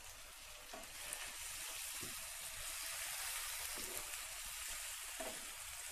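Chopped tomatoes and onions frying in hot oil in a non-stick pan, a steady soft sizzle as they are stirred in with a spatula.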